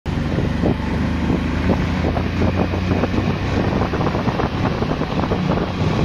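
Motorcycle engine running steadily while riding, with wind buffeting the microphone and frequent short knocks throughout.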